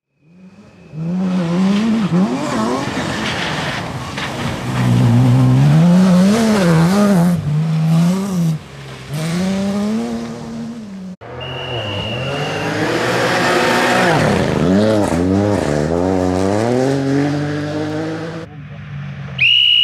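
Rally cars driving flat out on a gravel stage, two passes one after another: the engine revs rise and fall sharply through gear changes and lifts, with an abrupt cut between the two cars about halfway. A short, shrill steady whistle near the end.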